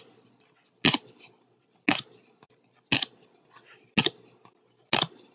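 Trading cards being flicked through one at a time by hand, a short crisp snap about once a second, six in all, each with a light rustle of card stock after it.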